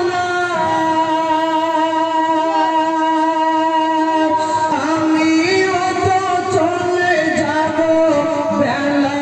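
A man singing a Bengali Islamic gojol solo. He holds one long note for about four seconds, then moves into gliding, ornamented phrases.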